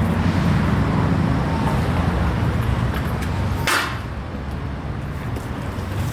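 Car driving on the road, heard from inside the cabin: a steady low rumble of engine and tyres, with one short hiss about three and a half seconds in.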